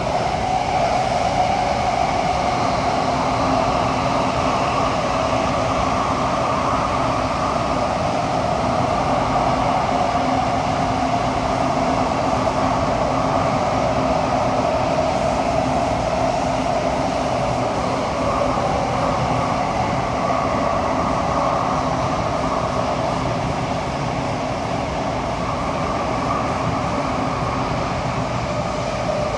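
Kawasaki–CRRC Qingdao Sifang T251 metro train running at speed through a tunnel, heard from inside the passenger car: a steady rushing rumble with a faint steady hum underneath.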